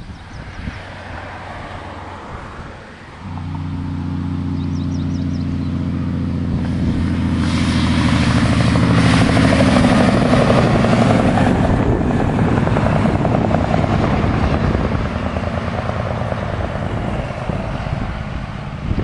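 Heavy-haul semi tractor-trailer passing close by: a steady diesel engine note under rising tyre and road noise that is loudest about halfway through, then fades as the truck moves off.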